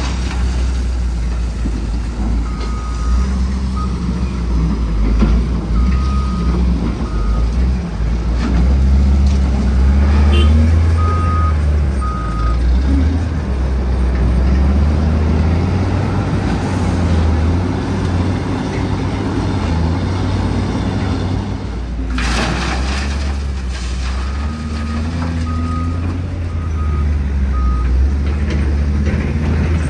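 Heavy diesel truck engine running, its pitch rising and falling, while a reversing alarm beeps in short runs several times. A sharp hiss cuts in about two-thirds of the way through.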